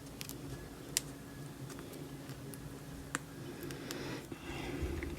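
A few sharp isolated clicks and some soft handling rustle from fingers working at a small plastic PolyGel tube and its cap, over a faint steady hum.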